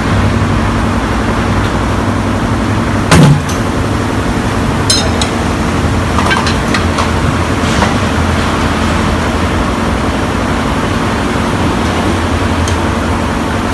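Tire-shop work noise with a steady low machine hum. A loud, sudden burst comes about three seconds in, followed by a few light metal clinks.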